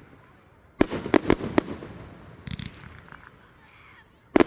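Fireworks shells bursting overhead. A cluster of about four sharp bangs comes about a second in, a few fainter pops follow around the middle, and another loud bang comes near the end.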